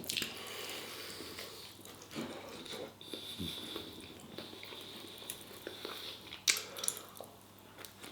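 A person biting and chewing food with their mouth close to the microphone: soft wet mouth sounds and small clicks, with one sharper click about six and a half seconds in.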